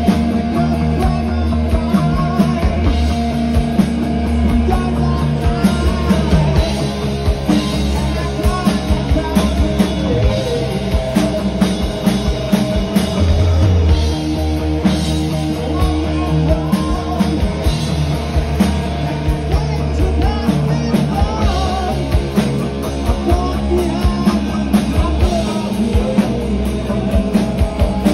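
Rock band playing live: distorted electric guitar, electric bass and a drum kit keeping a steady beat.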